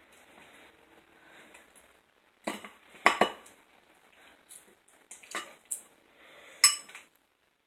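A spoon stirring thick cooked sugar syrup in a bowl: quiet scraping with several sharp clinks of spoon against bowl, the loudest about three seconds in.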